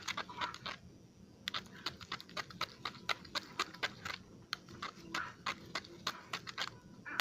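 A utensil clicking and tapping quickly and irregularly against a container while a thick soap slime of shampoo, body wash and hand soap is stirred, with short pauses about a second in and again after about four seconds.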